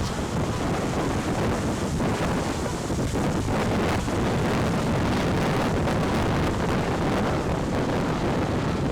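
Wind buffeting an outdoor microphone: a steady rushing noise, heaviest and most fluttery in the low end.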